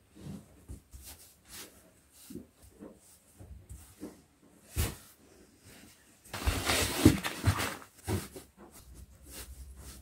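Clothes and a fabric storage bin being handled: soft rustles and light knocks as folded garments are pressed and smoothed into the bin. A louder stretch of rustling and scraping starts a little past six seconds in and lasts about a second and a half.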